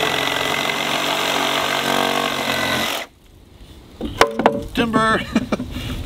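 Milwaukee cordless reciprocating saw cutting through a wooden 4x4 post at deck level, running steadily and then stopping abruptly about three seconds in as the cut goes through.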